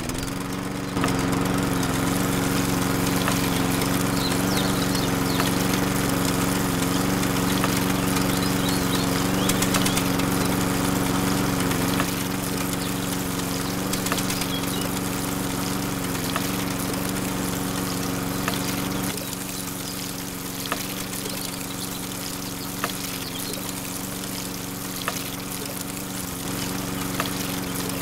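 Miniature toy water pump switched on, its small motor starting about a second in and then running with a steady hum, while water pours and splashes from its hose onto sand.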